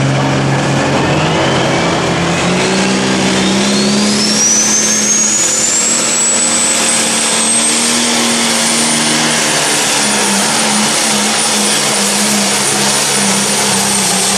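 John Deere Pro Stock pulling tractor's turbocharged diesel engine running hard at the start of a pull. Its high turbo whine climbs steadily over the first several seconds as the engine builds boost, holds at a high steady pitch as the tractor pulls the sled, and drops off slightly near the end.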